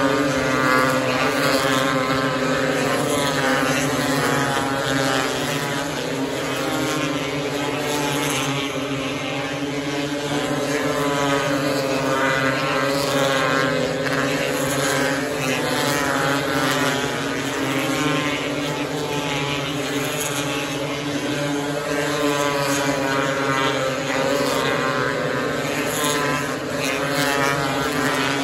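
Engines of several 270-class micro sprint cars running laps on a dirt oval, their pitch rising and falling as the cars go through the turns.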